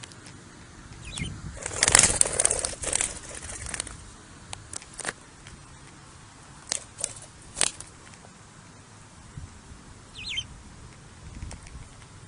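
Young budgie's wings flapping in flight, loudest in a noisy burst about two seconds in, followed by scattered sharp clicks. There is a brief chirp about ten seconds in.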